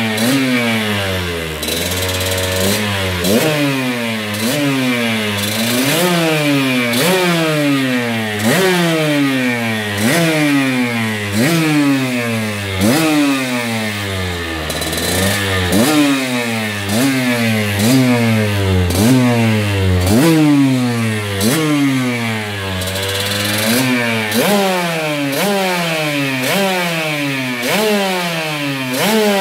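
Two-stroke dirt bike engine being revved in quick throttle blips, about one a second, with the pitch rising sharply and falling back each time. It settles briefly toward idle twice.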